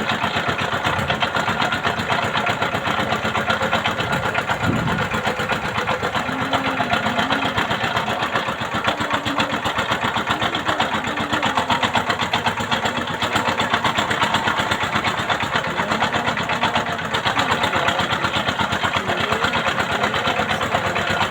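Boat engine running steadily with a fast, even chugging pulse.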